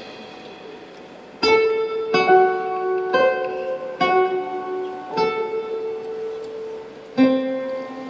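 Live jazz band in a slow, sparse passage: six single ringing notes from a plucked-string or keyboard instrument, roughly a second apart, each left to ring out. A soft held tone lies under the quiet first second.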